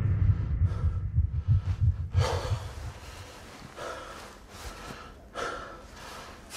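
A low rumble dies away over the first couple of seconds. A person then takes three short, sharp breaths, about a second and a half apart.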